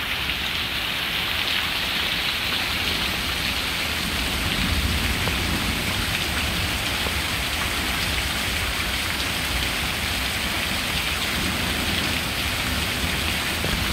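Heavy rain falling steadily on pavement, an even hiss during a thunderstorm downpour.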